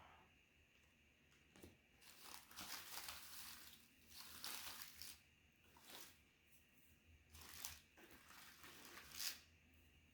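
Faint crinkling and rustling of lollipop packaging being handled, in several short bouts.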